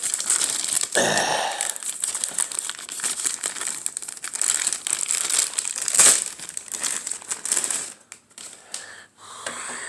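Crinkling plastic parts bag from a model kit being opened and handled, a dense run of crackles that thins out near the end.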